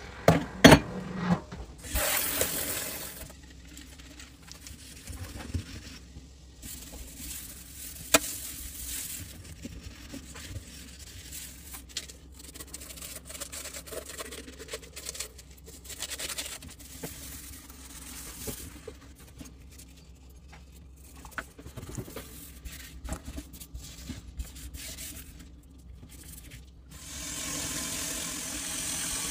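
A metal drain strainer clanks loudly against a stainless steel sink, then a wire dish cloth scrubs the stainless basin over scouring powder for most of the time. Near the end the faucet runs steadily as the sink is rinsed.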